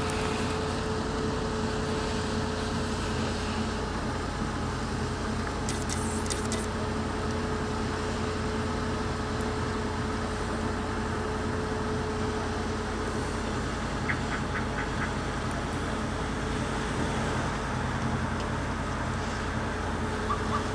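Fire engine's engine running steadily: a constant drone with a steady hum. About two-thirds of the way through, a quick run of about five faint high pips.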